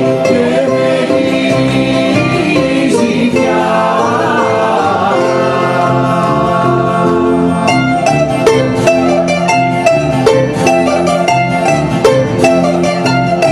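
Live Greek laiko band playing: bouzouki and guitar over bass, with a steady strummed rhythm that turns sharper and more clipped about halfway through.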